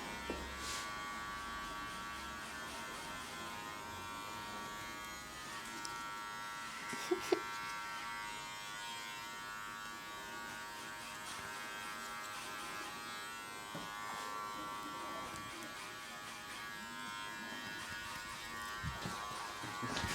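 Electric hair trimmer buzzing steadily, with two brief clicks about seven seconds in.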